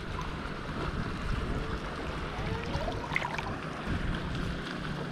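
Wind buffeting the microphone in a low rumble, with a faint steady hum beneath it and a few faint high calls about three seconds in.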